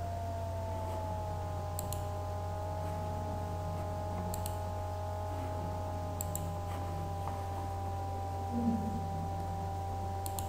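Computer mouse clicking four times, each a quick press-and-release pair, over a steady electrical hum with a faint whine.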